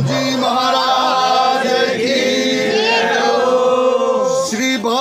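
Hindu devotional singing to the goddess: voices drawing out long sung notes between lines of the hymn.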